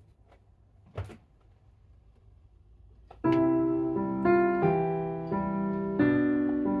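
Piano playing a slow, gentle lullaby in soft chords, starting about three seconds in. Before it, near quiet with a single knock about a second in.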